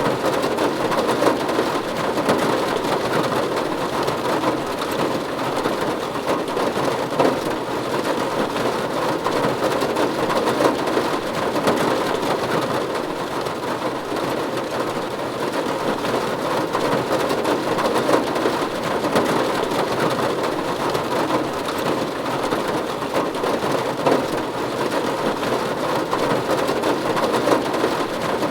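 Steady rain falling on a roof: a dense, even mass of drop impacts with no let-up and no thunder.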